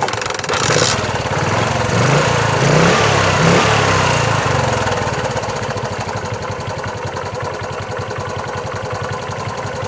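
Bajaj Chetak 4-stroke scooter's single-cylinder engine, freshly fitted with a replacement CDI, catching on a single kick and running. It revs for the first few seconds, then settles to a steady idle.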